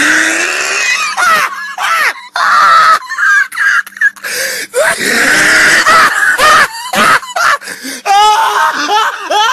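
A man laughing hysterically: loud, breathy, high-pitched bursts of laughter, broken by short gaps for breath.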